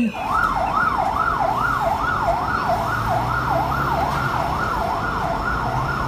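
Fire engine siren sounding a fast rising-and-falling wail, a little over two sweeps a second, steady throughout.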